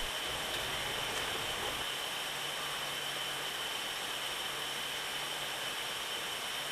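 Steady background hiss with a faint constant high-pitched whine; no distinct sound events.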